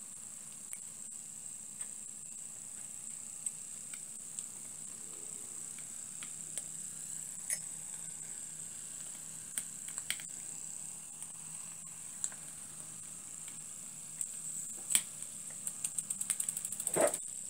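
Small homemade vertical copper-boiler steam engines running together: a steady high-pitched hiss with scattered light clicks, and a quick run of clicks near the end.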